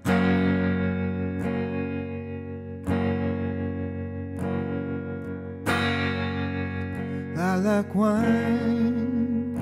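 Guitar playing slow ringing chords, about one every second and a half. A man's voice comes in singing about seven seconds in.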